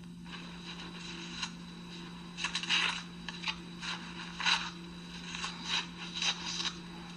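Snow being dug and shovelled away: a series of short scraping strokes, faint at first and coming thicker and louder after about two seconds, over a steady low hum.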